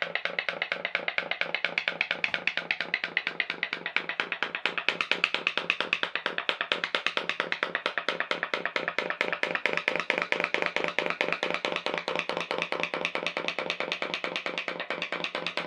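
Homemade pop-pop (putt-putt) boat's aluminium drinks-can boiler, heated by tea lights, giving a rapid, even run of pops as pulses of steam push water out of its tubes.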